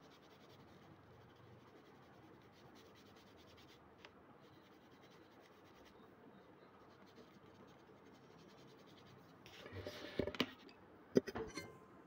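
Pencil scratching faintly on drawing paper in light shading strokes. Near the end comes a louder rustle of handling and a couple of sharp knocks.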